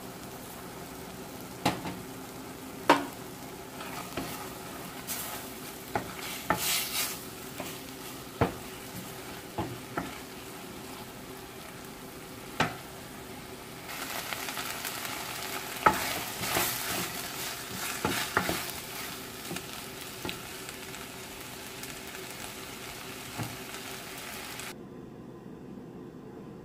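A utensil stirring chicken keema in a stainless steel pot, scraping and knocking against the metal over the steady sizzle of frying. The sizzle grows louder about halfway through, then the hiss cuts off near the end, leaving a low steady hum.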